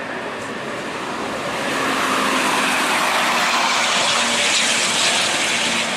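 Car driving at highway speed, heard from inside: a steady rush of tyre and wind noise over a low engine hum, getting louder about two seconds in.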